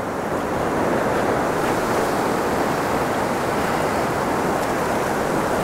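Fast river rapids rushing steadily, an even wash of whitewater noise.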